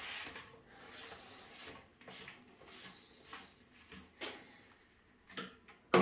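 Faint, scattered clicks and rustles of a white plastic sink bottle trap and its corrugated drain hose being handled and held up against the wall drain for a test fit.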